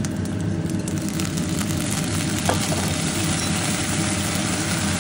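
Soy sauce sizzling in a hot cast-iron pan around a frying egg, the sizzle swelling about a second in as the sauce hits the oil and caramelises at the egg's crispy edges. Under it runs a steady low hum, with one short tick about halfway through.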